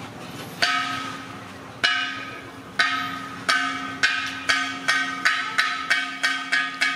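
Background music: the same struck, ringing percussion note repeated, at first about a second apart and then speeding up to about three strikes a second.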